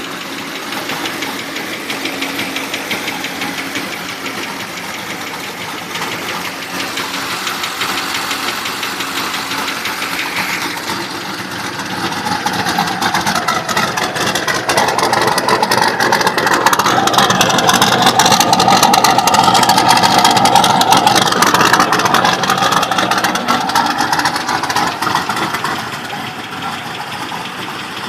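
Turbocharged GM LS1 V8 running with a fast ticking from the engine, which the owner suspects is a bad lifter, or perhaps piston slap. It swells louder for several seconds midway, then drops back.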